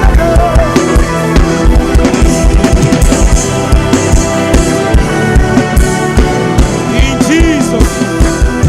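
Worship music: a drum kit keeping a steady beat under held chords.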